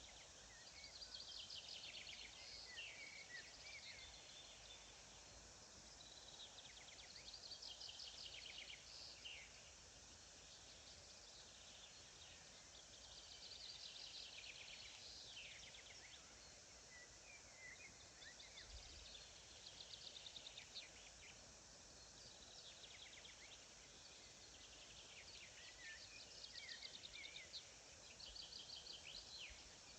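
A songbird singing faintly, repeating a short trilled phrase with a few quick gliding notes about every five to six seconds, over a steady outdoor hiss.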